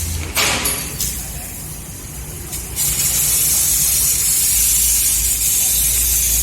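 CNC laser cutter cutting steel sheet: the assist-gas jet hisses steadily over a low machine hum. There is a short louder burst about half a second in, and the hiss drops for about two seconds before returning at full strength.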